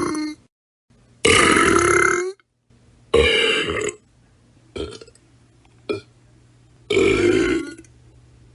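A person burping loudly, one belch after another with short pauses between: three long, drawn-out burps of about a second each and two short quick ones, with the tail of another at the very start. A faint low hum sits under the gaps.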